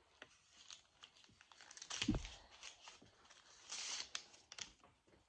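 Faint handling noises: scattered light clicks and short rustling, crinkly scrapes, busiest about two seconds in and again near four seconds.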